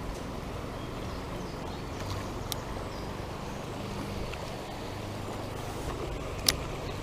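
Shallow riffle of a small trout stream running steadily over stones. A light click comes about two and a half seconds in and a sharper one about six and a half seconds in.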